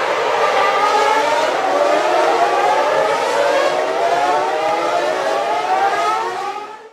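A ringtone of several overlapping wailing tones that slowly waver up and down like a siren, fading out just before the end.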